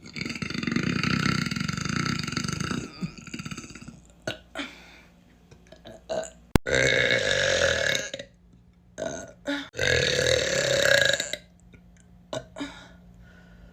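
A person belching: three long, drawn-out burps, the first lasting about three seconds, with a few short small sounds between them and a sharp click just before the second.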